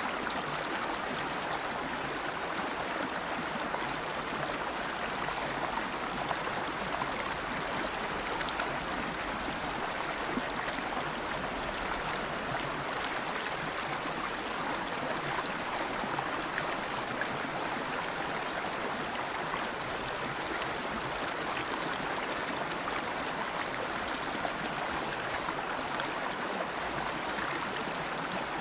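River water flowing and rushing steadily over rocks, a continuous even rush with a light gurgle.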